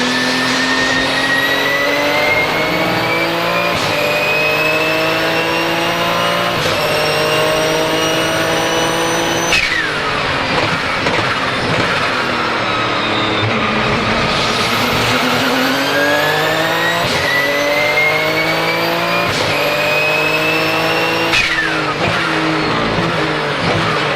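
Porsche 997 GT2 RSR's twin-turbo 3.9-litre flat-six accelerating hard through quick upshifts, its pitch climbing with each gear with a turbo whistle over it. About ten seconds in the throttle is lifted sharply and the revs fall for a few seconds. It then pulls up through the gears again and lifts once more near the end.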